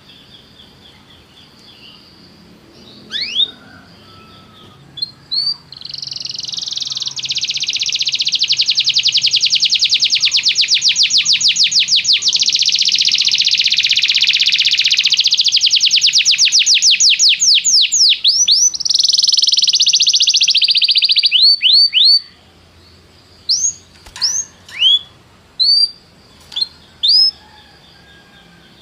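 Domestic canary singing a long, rapid trill of fast repeated notes that slows into separate sweeping notes and breaks off after about fifteen seconds. A string of single short chirps follows, about one a second.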